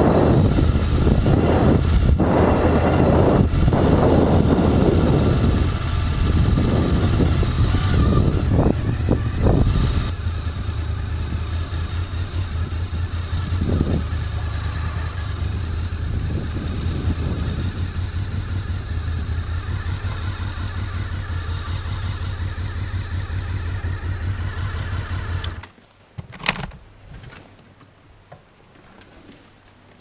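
Honda VFR Interceptor motorcycle's V4 engine running as the bike rolls slowly over grass. The engine is switched off with a sudden cut-off a few seconds before the end, followed by a couple of short knocks.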